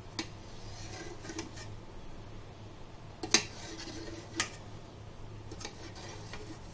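A kitchen knife cutting through set agar-agar milk pudding in an aluminium pan, the blade clicking and scraping against the metal pan several times, with the sharpest click about three seconds in. A low steady hum runs underneath.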